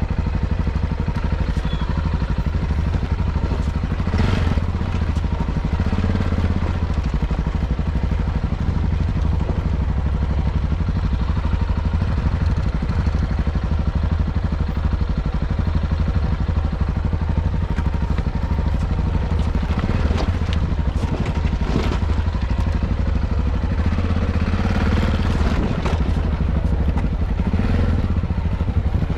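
Yamaha XT660Z Ténéré's single-cylinder engine running steadily under way, with a few brief knocks and clatters from riding over rough ground.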